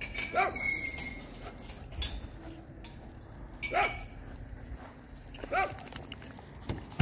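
A dog barking three times, short high-pitched barks that rise and fall, a couple of seconds apart, among dogs playing together.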